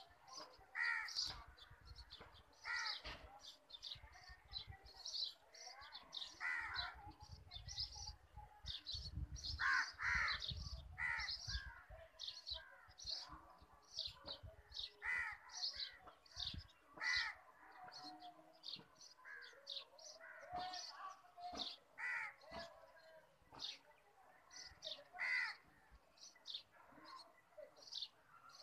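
Several birds calling in the trees: a steady run of short, high chirps, with harsher, caw-like calls breaking in every second or two. A low rumble of wind or handling on the microphone sits under the first half.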